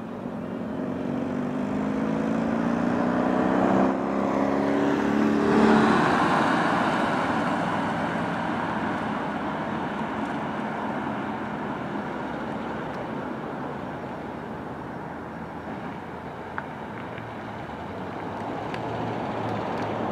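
Ford dump truck's engine pulling away and accelerating, rising in pitch with a brief dip about four seconds in. After that it runs at a steady speed with road and tyre noise, fading slowly and swelling again near the end as the truck comes back toward the listener.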